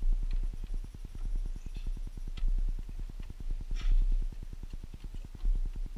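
A few sharp clicks and knocks of plastic and metal parts being pushed and worked into place under a Chevy Suburban's dashboard during heater-core refitting, the loudest about four seconds in. Underneath runs a steady low pulsing, about ten a second.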